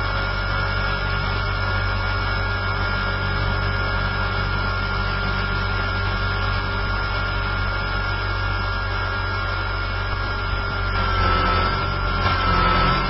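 Align T-Rex 450 electric RC helicopter's motor and rotor running, heard close up from its onboard camera: a steady high whine over a low hum, the whine's pitch wavering a little near the end.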